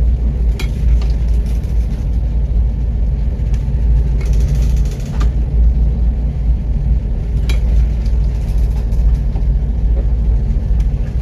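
Loud, steady, deep rumble with a few sharp knocks scattered through it.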